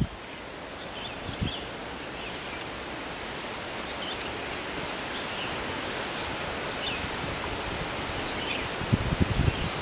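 Strong typhoon wind rushing through tree foliage: a steady, even hiss that slowly grows a little louder, with gusts buffeting the microphone about a second and a half in and again near the end.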